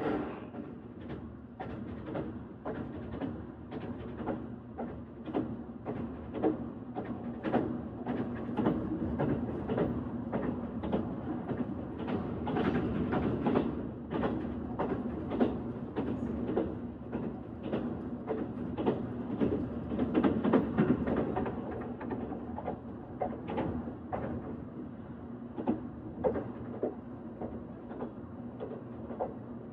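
Train running, wheels clicking and knocking over the rails above a steady low rumble and hum, a little louder around the middle.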